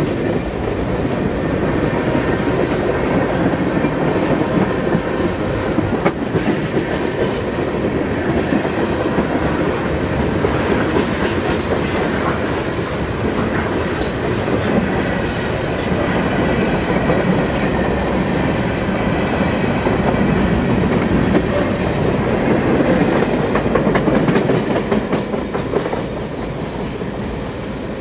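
A train rolling past at trackside: a steady rumble of wheels on rail with scattered sharp clicks, easing off a little near the end.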